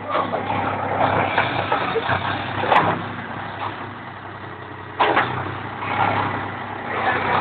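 A vehicle engine running with a steady low hum. A sharp knock comes a little under three seconds in, and a sudden burst of noise about five seconds in.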